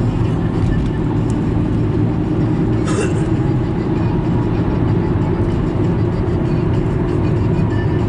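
Steady low rumble of road and engine noise inside a moving car, with a brief hiss about three seconds in.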